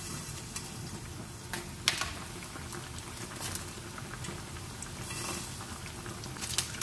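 Sandwiches deep-frying in hot oil: a steady bubbling sizzle with a few sharp crackles and pops, one louder pop about two seconds in.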